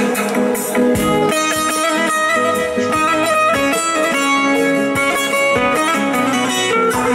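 Instrumental passage of a Turkish folk song: a bağlama (long-necked saz) plucking the melody with electronic keyboard accompaniment, playing steadily without singing.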